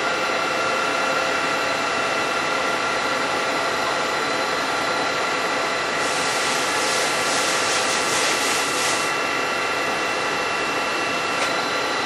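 CNC milling machine running a 4-flute solid carbide thread mill at 1,500 RPM, cutting a 1/2"-14 NPT external thread dry in Hastelloy: a steady machine whine with many tones. A hiss comes in for about three seconds in the middle, and at the very end the tones fall away as the spindle winds down.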